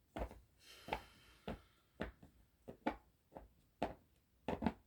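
Tarot cards being handled on a table: a run of about ten light, irregular taps and knocks, with a brief swishing rustle about a second in.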